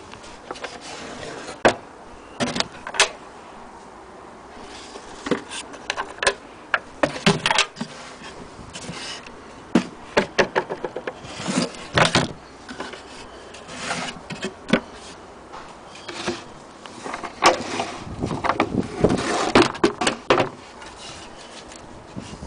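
Vintage wooden sewing machine case being handled: irregular knocks, clicks and scrapes of wood, with a busier cluster of rubbing and knocking near the end.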